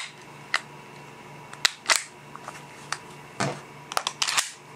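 Metal parts of a disassembled WG P230 Phantom CO2 airsoft pistol, its slide and barrel, clicking and clacking as they are handled: a handful of sharp, separate clicks at irregular intervals, a few of them in quick pairs near the end.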